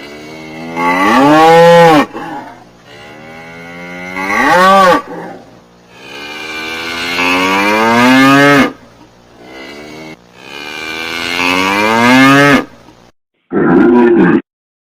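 Cattle mooing: about five separate moos. Most are long calls that rise in pitch and cut off abruptly, and the last one, near the end, is short.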